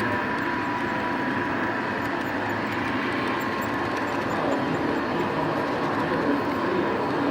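HO-scale model train running along the layout's track: a steady whirring rumble with a faint even whine.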